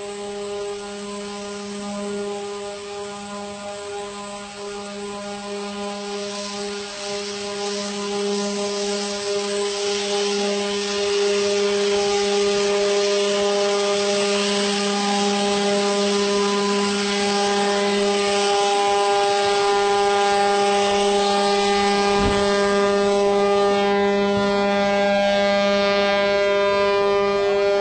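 A ship's horn sounding one long, steady, deep blast throughout while the hull slides down launching airbags into the water. A rushing, splashing wash of water builds from about six seconds in and grows louder about halfway through as the bow pushes into the sea.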